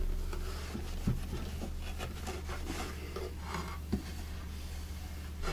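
Soft cloth rubbing over the waxed wooden radio cabinet, buffing off beeswax-and-orange-oil Feed-N-Wax, with a couple of light knocks on the wood. A steady low electrical hum runs underneath.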